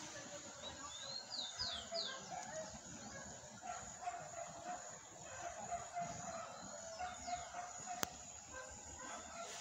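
Birds calling faintly over quiet outdoor ambience: a quick run of four high chirps about a second and a half in, and a lower call on and off through the middle. A single sharp click near the end.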